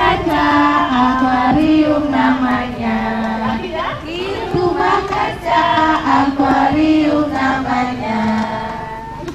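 Young children singing a song together, led by a woman's voice: a simple tune of held notes stepping up and down.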